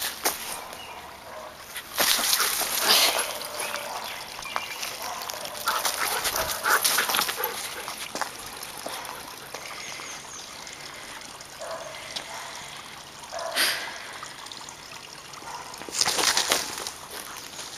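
Samoyed digging in bark-chip mulch, its paws scraping and scattering the wood chips in four scratchy bursts, the longest lasting about a second and a half.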